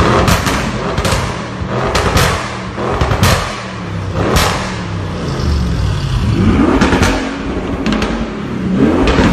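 Audi RS6 twin-turbo V8 with an aftermarket sports exhaust, revved repeatedly in short blips. Sharp cracks and pops come on the overrun, and the engine pitch climbs and falls with each rev.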